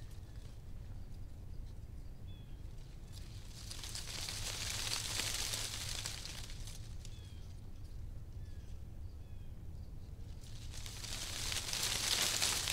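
Outdoor ambience: a steady low rumble with two slow swells of hiss, and a few faint short bird chirps.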